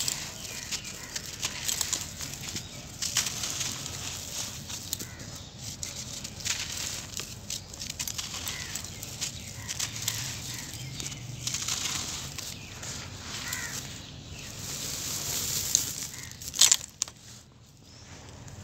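Dry sand-cement lumps crushed and crumbled by hand, with gritty crackling and dust and grit pattering down onto a dry dirt floor and a wire grate. A short, louder knock near the end.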